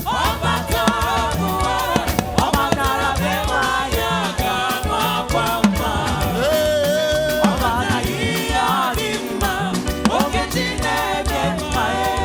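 Upbeat gospel praise music: voices singing over a band with a steady, danceable drum beat and bass.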